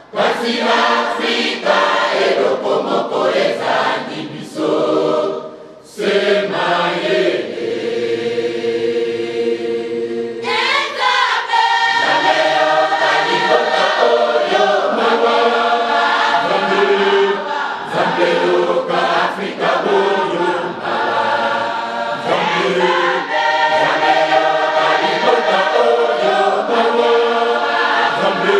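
Large church choir of women and men singing together, with a brief drop about six seconds in and long held notes a little later.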